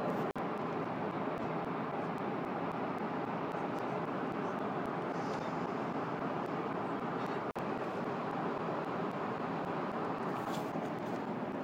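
Steady rushing drone of an airliner cabin in flight, engine and airflow noise, cutting out for an instant twice: just after the start and about seven and a half seconds in.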